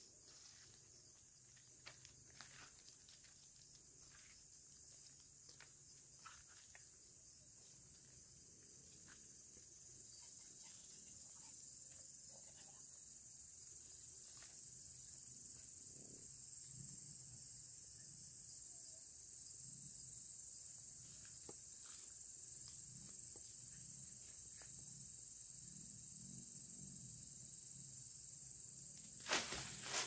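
Faint, steady, high-pitched chirring of night insects, with scattered soft clicks. From about halfway there are slow, low rustling steps about once a second, and a sharp knock comes just before the end.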